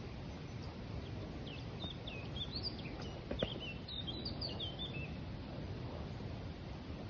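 A small bird singing a quick run of short, high chirping notes over steady outdoor background noise, with a single sharp click about three and a half seconds in.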